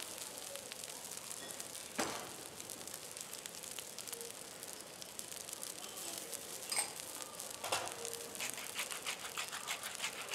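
Garlic fried rice sizzling quietly on a hot steel teppanyaki griddle, with a few sharp clicks of utensils. From about eight seconds in comes a quick, even run of clicks as seasoning is dispensed over the rice from a hand-held cylindrical container.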